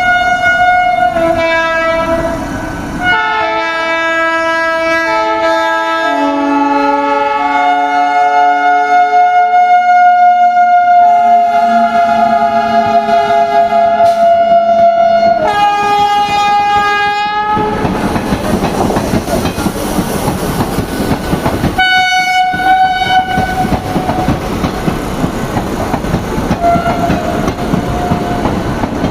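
WAP-7 electric locomotive sounding its horn in long, continuous blasts, the notes shifting in pitch, for about the first seventeen seconds. The train then runs close by with a loud rumble and wheel clatter, and one short horn blast comes partway through.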